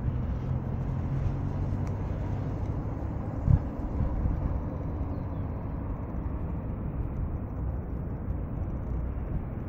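Airbus A330 jet engines running at low taxi power as the airliner rolls along the taxiway: a steady rumbling hum, with a brief low thump about three and a half seconds in.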